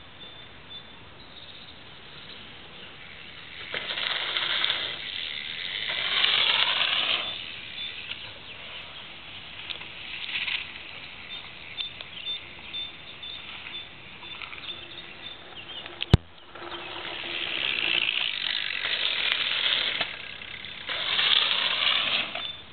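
Bicycles passing close on a dirt track: tyres rolling over packed dirt and the freewheel hub buzzing as they coast by, in loud passes about four seconds in, around seventeen seconds and near the end. A single sharp knock comes just before the second pass.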